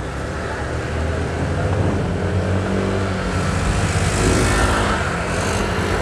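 Motorcycle engine running steadily while riding, with wind noise on the microphone that picks up about halfway through.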